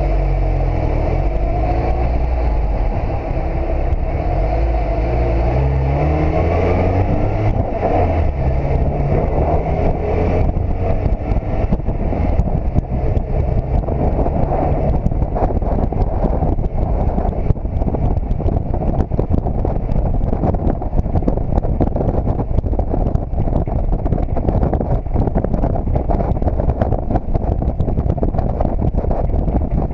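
Car engine pulling away from a stop, its pitch climbing in steps through the gears over the first ten seconds, then giving way to heavy wind buffeting on the hood-mounted camera's microphone as the car cruises.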